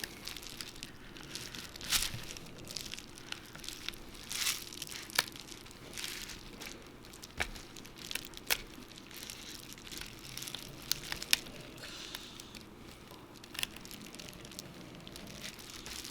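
Small hand tools working on an iPhone 7 Plus during a screen replacement: faint scraping and handling, broken by irregular sharp ticks and clicks.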